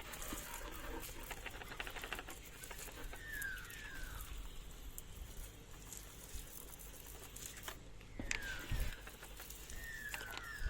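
Light patter of many small ticks and drips as degreaser and dirt run off the engine bay. A bird calls now and then with short falling whistles, often two in quick succession.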